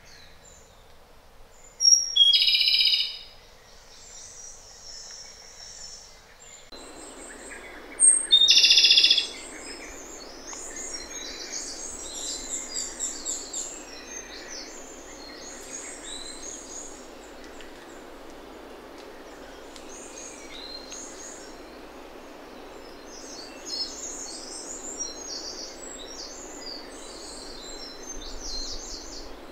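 Japanese robin singing: two loud songs, each a high note followed by a rapid trill, about two seconds in and again about eight seconds in. Softer high bird chirps follow through the rest, over a steady background hiss that comes in abruptly after about seven seconds.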